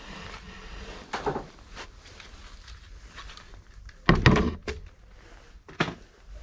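A few knocks and thuds: one about a second in, the loudest about four seconds in, and a short sharp knock near the end.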